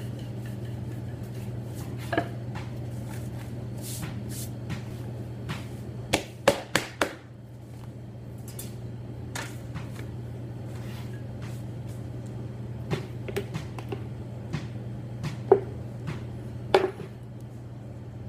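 Scattered knocks and taps of pizza-making on a marble counter, from a wooden rolling pin, pizza dough, a metal pizza peel and a sauce ladle being handled, over a steady low hum. There is a quick cluster of knocks about six to seven seconds in, and two sharp taps near the end.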